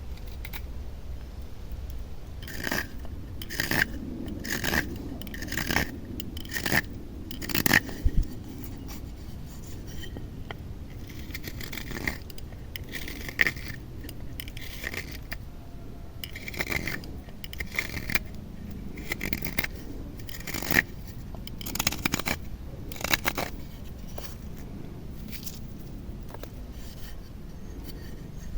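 A carving blade shaving wood in a series of short scraping strokes, about one a second, with a pause of a few seconds partway through.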